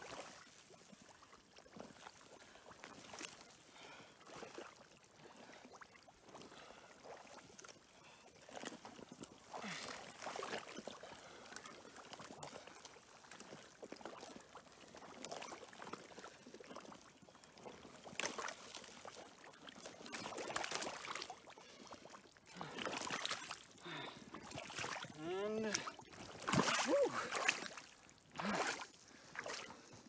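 Shallow creek water sloshing and trickling around a person in chest waders moving in a muddy creek bed, in irregular splashes that grow louder and more frequent in the last third, with a few short pitched glides near the end.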